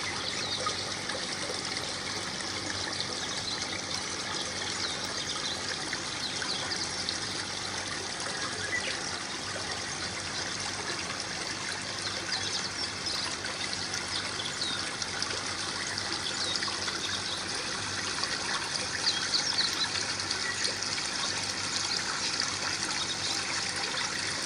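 Small waterfall in an aquaterrarium tank, water trickling and splashing steadily with many little droplet splashes.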